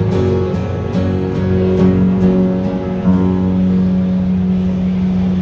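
Guitar playing the closing bars of a song. A last strummed chord about three seconds in rings on and stops near the end.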